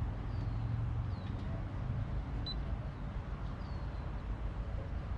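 Outdoor background: a steady low rumble like wind on the microphone, with a few faint high falling chirps, likely birds, and one short high electronic beep about two and a half seconds in.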